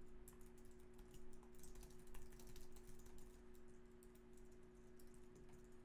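Faint typing on a computer keyboard: a run of quick, light keystrokes over a low steady hum.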